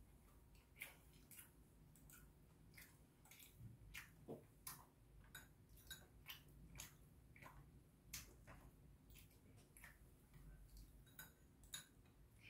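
Faint, irregular clicks and taps of eating, about two a second: metal chopsticks and a spoon against a ceramic rice bowl, with chewing.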